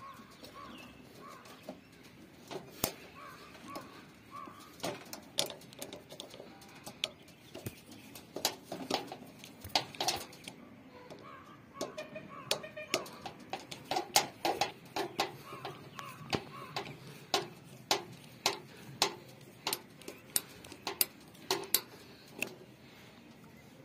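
Sharp metallic clicks and taps of hand tools working on a three-phase tower AC's outdoor unit. They are scattered at first and come about once a second in the second half. Birds call faintly in the background.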